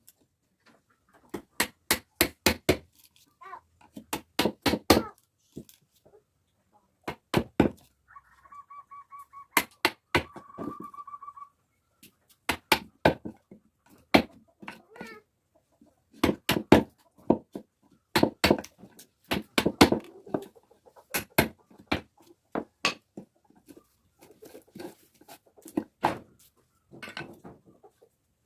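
Hammer blows on wood in quick bursts of three to six strikes, with pauses between the bursts. A short pulsing, high-pitched call sounds between about eight and eleven seconds in.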